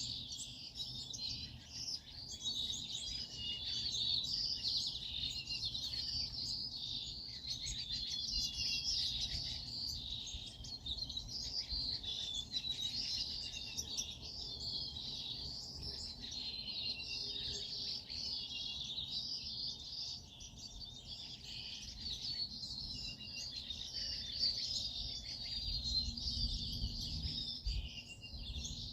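Many small birds chirping and twittering together in a dense, continuous chorus. A low rumble comes up near the end.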